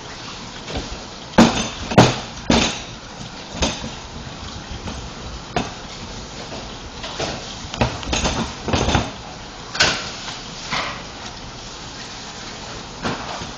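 Hands kneading and pressing a slab of fondant on a floured worktop, making irregular thumps and knocks. The loudest come about one and two seconds in, and they thin out near the end.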